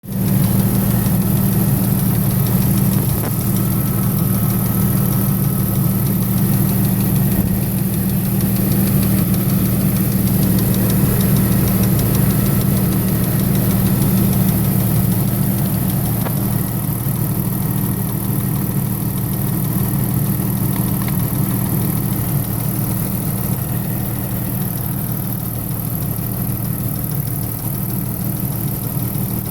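1998 Jeep Wrangler 4.0-litre straight-six idling steadily, with a fast light ticking over the engine note, which the owner suspects is lifter noise.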